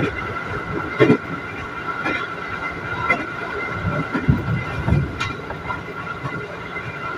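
Electric commuter train running at speed, heard from inside the car: a steady high whine under the running noise, with the wheels knocking over rail joints about once a second.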